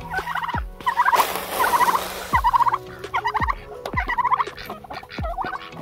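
Turkey gobbling over and over, short warbling calls about once a second. About a second in, feed rushes into a plastic trough for a second and a half as it is poured.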